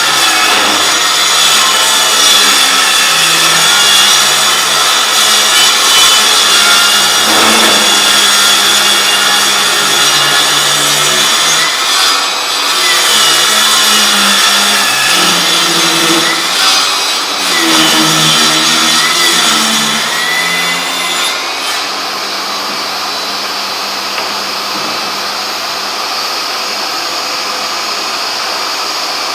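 Milwaukee M18 Fuel cordless table saw running and cutting wood: a loud blade whine that wavers and dips in pitch as it works through the stock. About two-thirds of the way through it settles into a steadier, slightly quieter tone.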